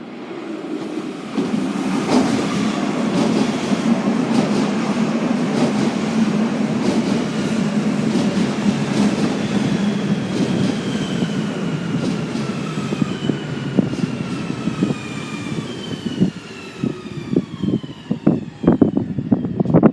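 Passenger train running into the station and slowing, a steady rail rumble with several whining tones that fall in pitch as it brakes. In the last few seconds comes a run of sharp wheel clacks over rail joints and points.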